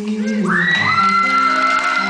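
A high-pitched cheering scream from the audience rises about half a second in and is held, over a sustained strummed acoustic guitar chord as a live song ends, with crowd cheering behind it.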